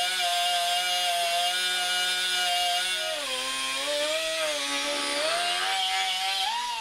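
Air-powered cut-off wheel cutting sheet metal: a high whine over a hiss, steady at first, then dropping and wavering in pitch as the wheel bears into the cut about three seconds in. The pitch climbs back near the end, and the wheel winds down as it stops.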